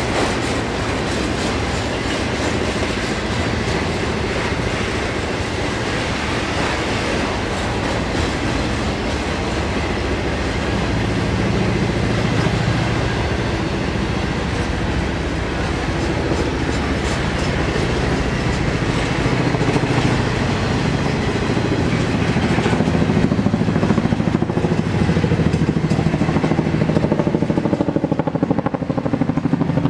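Union Pacific intermodal freight train rolling past: trailer-carrying flatcars and double-stack container well cars clattering steadily over the rails. The low rumble gets louder about two-thirds of the way through.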